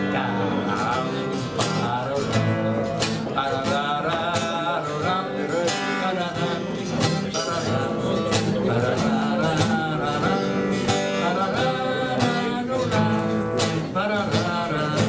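Steel-string acoustic guitar strummed in a steady rhythm, with a man's voice singing over it: a slow blues song.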